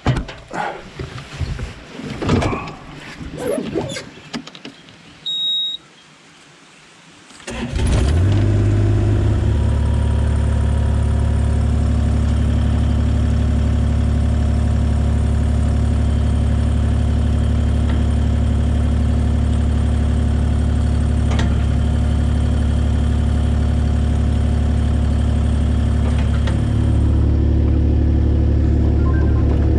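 Excavator's diesel engine starting about seven and a half seconds in and then running steadily, a little louder near the end. Before it starts there are scattered knocks and clicks and one short high beep.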